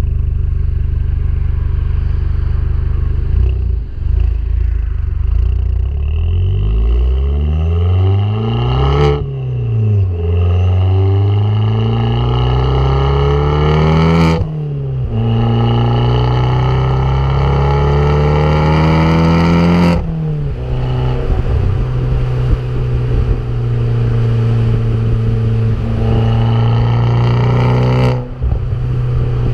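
Abarth Grande Punto's turbocharged 1.4 T-Jet four-cylinder engine accelerating hard up through the gears. The note climbs in pitch and drops back at upshifts about nine, fourteen and twenty seconds in, then holds a steady note, with a brief dip near the end.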